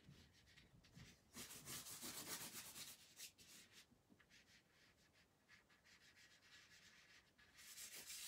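Charcoal scrubbed in rapid back-and-forth strokes over gesso-coated paper to lay a dark background tone, a faint scratchy rubbing. It comes in two louder spells, about a second in and again near the end, with lighter strokes between.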